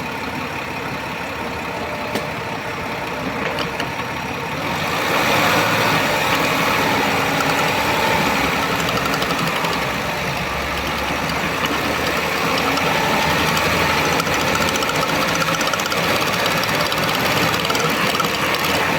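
2010 Ford Fusion 3.0 V6 running with its drivetrain turning, growing louder about five seconds in, with noise from the front transfer case (power transfer unit). The owner says this part is making a lot of noise and that its shaft is shaking.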